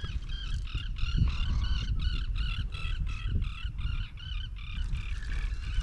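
Geese honking over and over, about three calls a second, for most of the few seconds, over a low wind rumble on the microphone.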